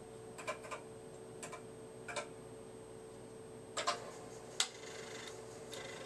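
Keys of an IMSAI PCS-80 computer keyboard clicking as a filename is typed, a few separate key strokes in the first couple of seconds, then two louder clicks around four seconds in. A steady faint hum runs underneath.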